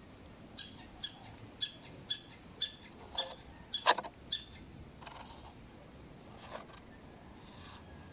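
A bird calling a series of about eight short, sharp notes, roughly two a second, then stopping about halfway through, with a few fainter notes after.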